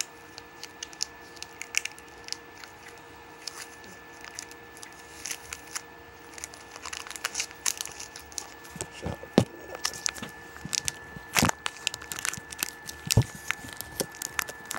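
Plastic Snickers candy-bar wrapper crinkling and tearing as it is worked open. The crackling is sparse at first and grows denser and louder in the second half.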